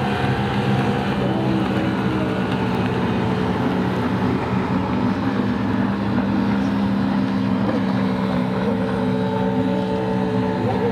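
Personal watercraft engines at racing speed: a steady engine drone, with brief shifts in pitch about eight seconds in and again near the end.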